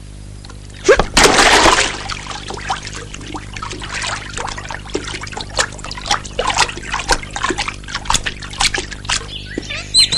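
Water: a loud splash or rush lasting about a second, starting about a second in, then irregular dripping and trickling.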